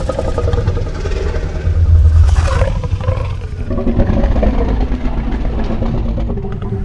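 Indominus Rex creature vocalization sound effect, layered from animal recordings: one long, deep growling call with a heavy low rumble and shifting pitched layers, loudest about two seconds in and swelling again around four seconds.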